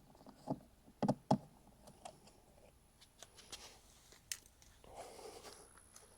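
A few light clicks and knocks, three close together about a second in and another past the middle, with faint scraping near the end: hand tools and the plastic marker-light housing being handled while its square-drive screws are taken out.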